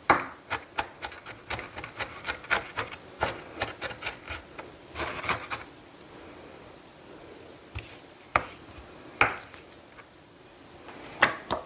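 Chef's knife chopping a white onion on a wooden cutting board: quick knocks of the blade on the board, about four a second, for the first five seconds or so, then a few scattered taps.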